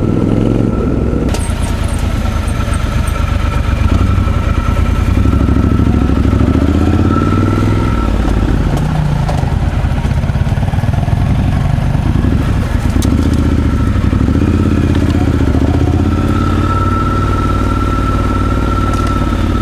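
Triumph Scrambler 1200 XE's 1200 cc parallel-twin engine running as the motorcycle is ridden on a rough track, its revs rising and falling with the throttle.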